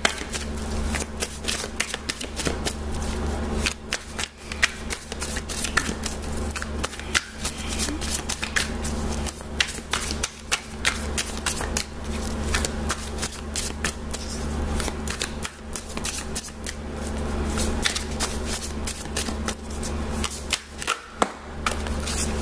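Deck of oracle cards being shuffled by hand: a continuous run of quick card clicks and slaps, over a low steady hum.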